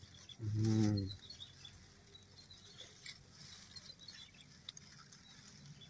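A man's brief voiced sound, a short word or hum, about half a second in. After it come faint, scattered crackling rustles of dry grass and soil as hands work at the mouth of an eel hole in the ground.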